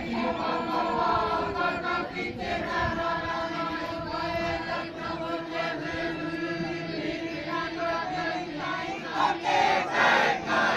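A group of people chanting together in a Māori pōwhiri welcome chant, in long held notes. The chant grows louder near the end.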